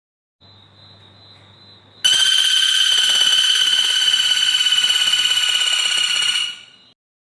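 A bird's long, steady, buzzy trill at one pitch, lasting about four and a half seconds before fading out. It is preceded by a faint thin high note.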